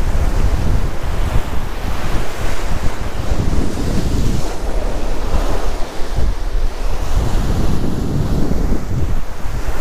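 Sea surf breaking and washing over rocks along a rocky shoreline, a continuous churning wash. Wind buffets the microphone, adding a heavy low rumble.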